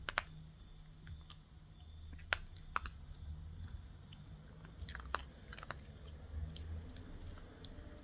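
A pet eating from its bowl: chewing, with scattered sharp crunches, a few close together around five seconds in.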